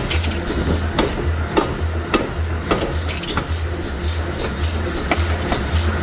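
Sharp metallic clanks and knocks at uneven intervals, roughly one every half second, from metal workpieces being handled and struck in a forging shop, over a low pulsing hum.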